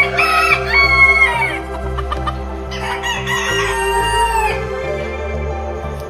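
A rooster crowing twice, one long crow at the start and another about three seconds in, over background music.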